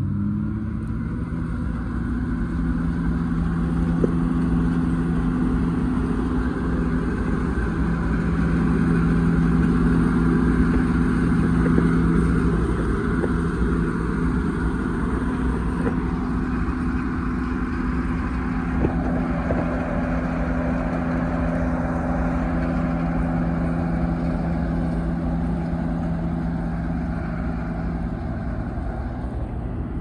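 John Deere 9860 STS combine harvester running steadily at working speed: a constant mechanical drone with a low, even hum and no change in pace.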